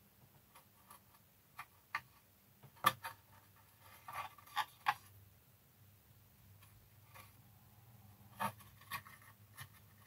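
Paintbrush dabbing and scrubbing on hard plastic model parts: scattered light ticks and taps, the sharpest about three seconds in, with a cluster around four to five seconds and another near eight and a half seconds.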